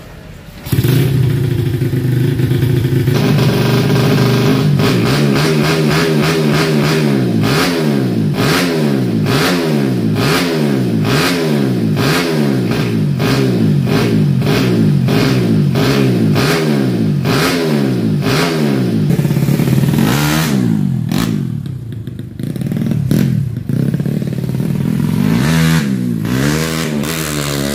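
Modified Honda Revo Absolute's single-cylinder four-stroke engine, bored out to 150cc with a PWK 28 carburettor, revved hard in repeated throttle blips, the pitch rising and falling about once a second. Near the end come a few longer rises and falls in revs.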